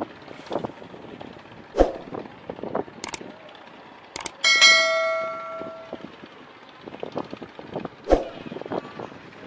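Subscribe-button animation sound effect: sharp mouse clicks and, about halfway through, a single bright notification-bell ding that rings out and fades over about a second and a half, over steady background noise.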